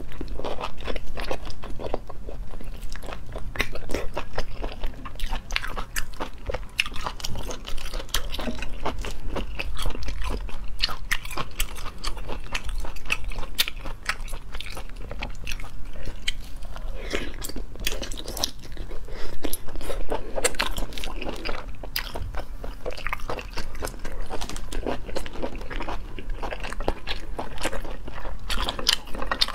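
Close-miked eating of cooked sea snail meat: steady biting and chewing with many sharp, wet mouth clicks throughout.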